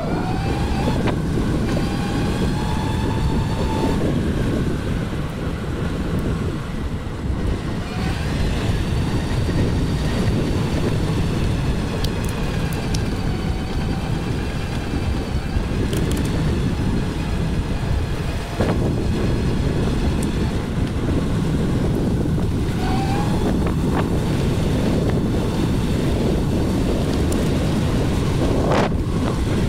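Wind buffeting the microphone and steady road rumble while riding along a street, with a higher whine that rises and falls a few times with speed.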